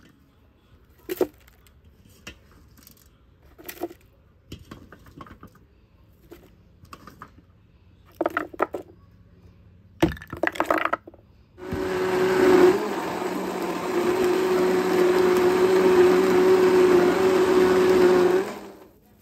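Countertop blender running for about seven seconds with a steady motor hum, grinding shallots, garlic and red chilies into a spice paste, then cutting off abruptly. Before it starts, a string of separate knocks and clacks as ingredients are handled and dropped into the blender jar.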